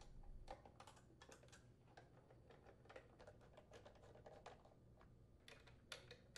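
Faint, irregular light clicks and taps of a hand nutdriver turning the blower housing's mounting screws, thickest in the first second and a half and again near the end.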